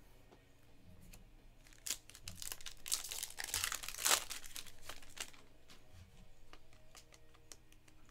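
A Panini Mosaic basketball card pack's wrapper being torn open and crinkled, loudest about two to five seconds in, with lighter clicks and rustles either side.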